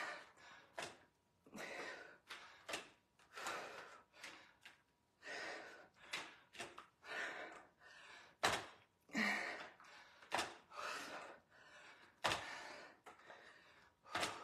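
A woman breathing hard in short, rhythmic exhalations about once a second during repeated dumbbell lifts, with a few sharp clunks from the adjustable dumbbells.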